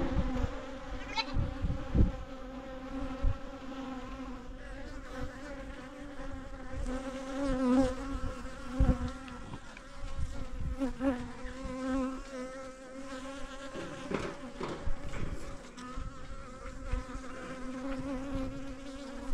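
Honeybees buzzing close by in a steady hum whose pitch wavers now and then as bees fly near, with a couple of brief low thumps, the loudest about two seconds in.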